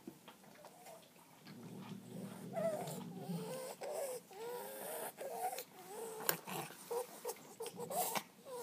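Japanese Akita whining, a long run of short, wavering high-pitched whines, with a few sharp clicks among them.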